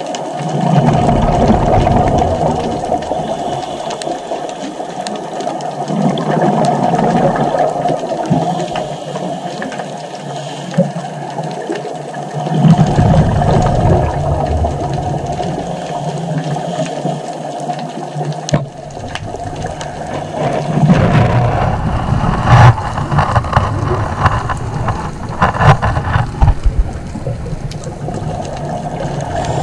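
A scuba diver's regulator breathing, heard through a GoPro's underwater housing: several bursts of exhaled bubbles gurgling out, a few seconds apart, over a steady underwater hiss.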